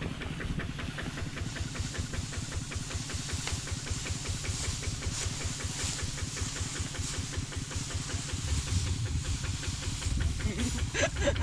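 A two-wheel walking tractor's single-cylinder diesel engine running steadily with a rapid, even thud, under the hiss and crackle of dry rice straw being gathered and pushed by hand.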